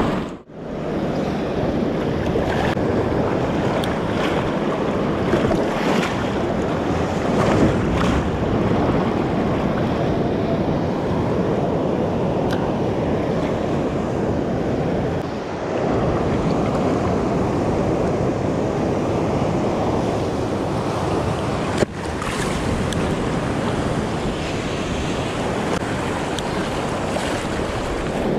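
Ocean surf washing and breaking around the legs of someone standing waist-deep in the water, with wind buffeting the microphone.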